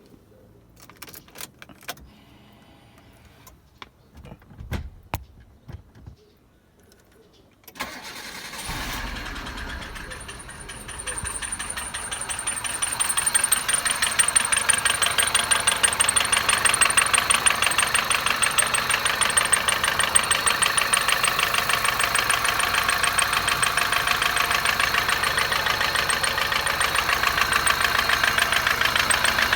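A few clicks, then the 2006 Kia Picanto's engine cold-starts about eight seconds in and settles into a steady idle with a fast, even ticking and a thin high whistle that fades. The owner is unsure whether the tick is an intake manifold leak or lifter tick.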